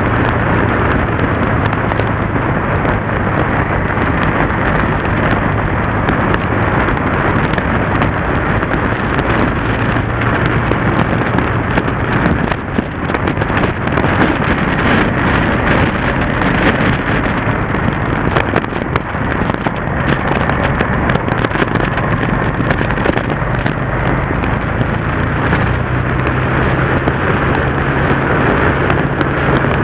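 Yamaha TDM parallel-twin motorcycle engine running at road speed under heavy wind rush on the camera. The engine note holds steady, fades under the wind for several seconds midway, then comes back a little higher.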